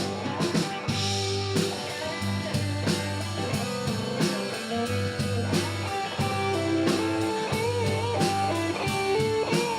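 Live band playing an instrumental break: an electric guitar lead with sustained, bending notes over bass guitar and drum kit.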